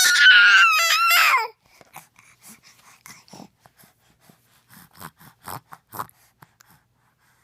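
A baby's high-pitched vocal sound, held for about a second and a half, then scattered soft clicks and rustles of handling noise.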